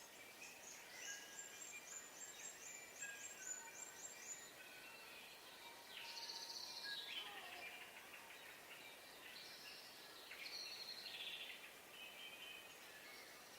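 Faint dawn birdsong: a quick run of about ten short high notes in the first few seconds, then a warbling song phrase that falls in pitch, and more short song phrases after it, over a soft steady background hiss.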